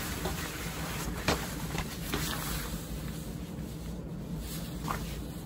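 Rubbing and rustling as a leather ankle boot is handled and pulled onto a foot, with clothing shifting, and a few soft knocks, the clearest about a second in.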